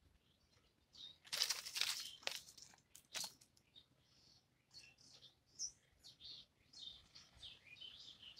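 Small birds chirping in the background, with a loud rustling crunch from about one to two and a half seconds in and a sharp crack soon after, as a cat seizes and pulls at a dead pigeon.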